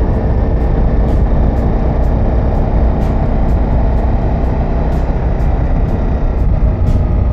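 Ducati Multistrada V4S motorcycle on the move: steady engine and wind rush heard from the rider's microphone.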